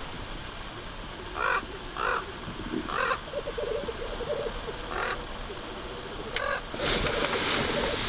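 Male black grouse displaying at a lek: several short harsh calls, then a bubbling, cooing song about three seconds in. Near the end a loud hiss comes in over the bubbling, which returns.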